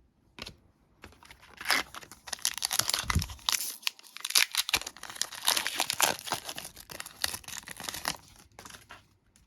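A trading card pack's wrapper being torn open and crinkled: a dense run of crackling and ripping that starts about a second and a half in and stops near the end.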